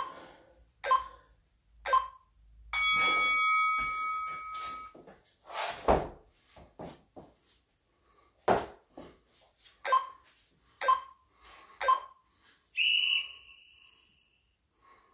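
Workout interval-timer beeps: three short beeps a second apart, then a longer tone of about two seconds marking the end of an exercise set. Near the end, three more short beeps and a higher tone signal the start of the next set, with a couple of thuds and breathing in between.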